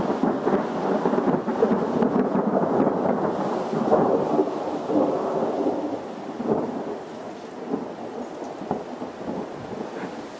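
A thunderclap from a dry thunderstorm, with no rain falling. It breaks suddenly, then rolls and crackles loudly for about six seconds with scattered sharp cracks, and slowly fades toward the end.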